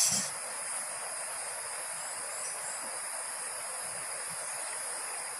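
Steady high-pitched insect chorus over an even outdoor hiss.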